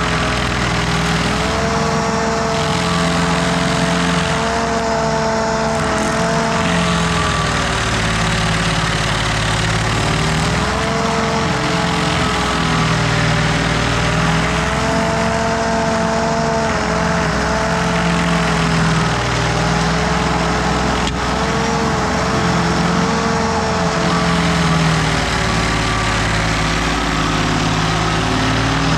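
Carlton SP6016TRX tracked stump grinder running under load as its cutter wheel grinds a stump: a steady engine note that dips and recovers slightly a few times over a constant grinding noise.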